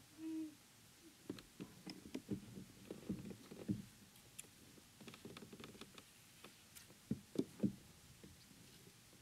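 Faint, irregular knocks and taps from handling a fishing rod, reel and gear in a plastic kayak while a lure is retrieved. They bunch together about three to four seconds in and again about seven seconds in.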